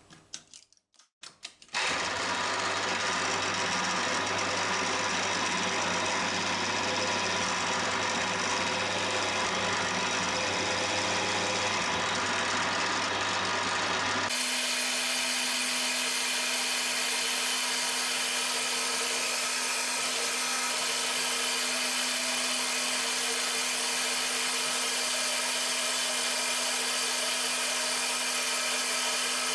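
Cormak ZX 7045 mill-drill's spindle running steadily while spot-drilling a steel part, after a few clicks as it is switched on. About halfway through, the running sound changes abruptly to a different steady pitch.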